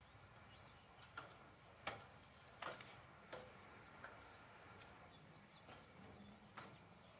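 Faint clicks and knocks from a metal stepladder as a man climbs its rungs, about seven in all, spaced irregularly under a second apart.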